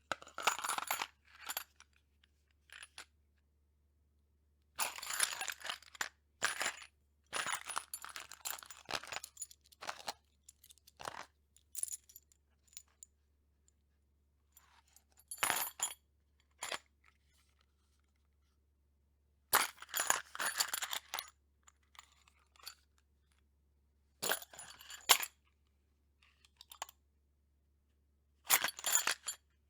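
Loose ammunition cartridges in a box, clinking and rattling against each other in repeated short bursts separated by silent pauses.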